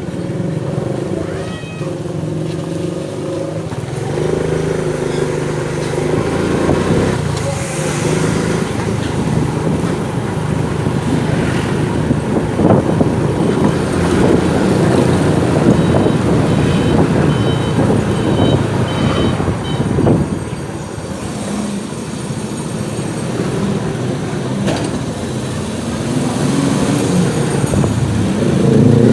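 Motorcycle engine running under way in street traffic, with other vehicles passing close by. A run of short high beeps sounds in the middle, and the engine pitch rises near the end as it accelerates.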